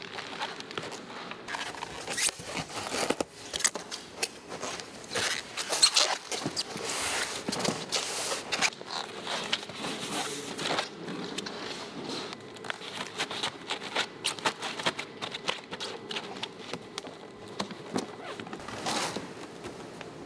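Handling noise of quadcopter drones being packed into foam-lined cases: many irregular plastic clicks, knocks and scrapes, with rustling.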